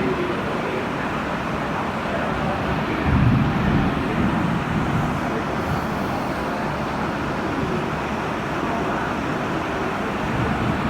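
Steady road traffic noise, with a louder low rumble swelling about three seconds in.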